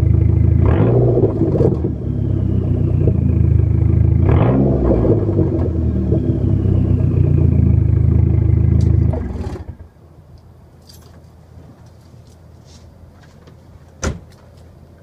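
Dodge Neon SRT-4's turbocharged 2.4-litre four-cylinder running through a Mopar cat-back exhaust, revved briefly twice and settling back to idle, where the owner hears a strange rattle as the revs drop to about 800 rpm. The engine stops a little over halfway through, followed by a single sharp click near the end.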